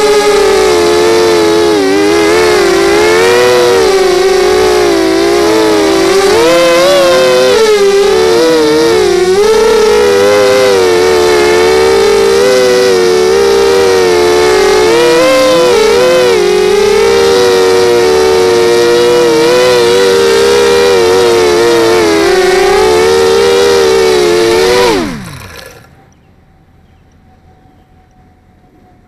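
Lumenier 250 racing quadcopter's four brushless motors whining loudly, heard close from the onboard camera, the pitch wavering up and down with the throttle. About 25 seconds in the motors spool down with a quick falling whine and stop as the quad lands, leaving quiet with a faint steady tone.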